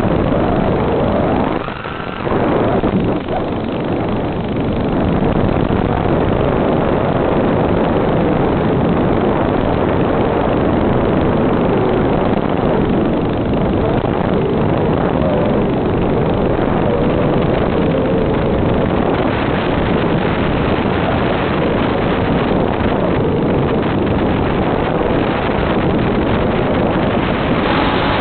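FPV quadcopter's motors buzzing steadily, mixed with rushing wind and hiss, with a faint hum whose pitch wavers with the throttle. The sound dips briefly about two seconds in.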